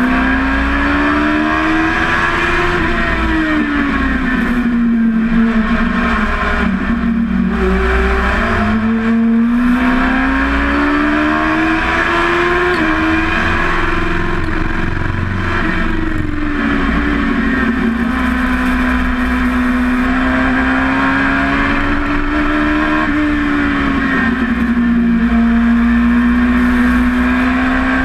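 Dwarf race car's motorcycle engine at racing speed, heard from inside the cockpit: its pitch climbs under acceleration and drops on each lift or shift, several times over, with wind and road noise throughout.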